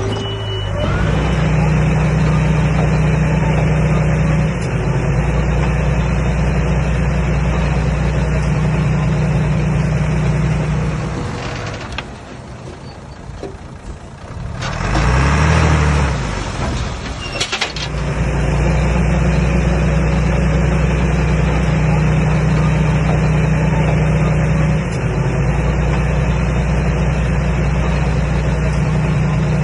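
Komatsu D21A bulldozer's diesel engine running steadily at working revs. Near the middle it drops away for a couple of seconds, then revs up and back down once before settling back into its steady run.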